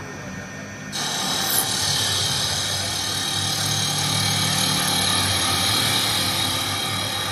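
WS-L1530A CNC wood lathe's spiral rotary cutter head cutting into a spinning wooden blank. A loud, steady cutting noise starts suddenly about a second in, over the machine's low hum.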